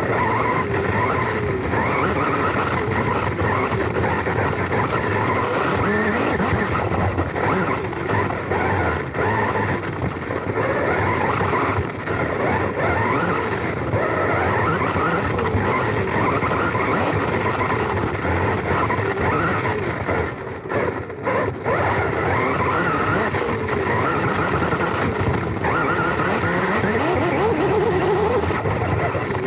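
Onboard sound of a Serpent SDX4 4wd electric RC buggy racing: its brushless motor whines up and down with the throttle over steady drivetrain and tyre noise. The sound drops briefly about two-thirds of the way through.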